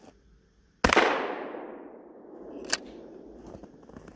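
A single shotgun blast firing a buckshot load: one sharp report about a second in, with a long echoing decay lasting over a second. A light click follows near the three-second mark.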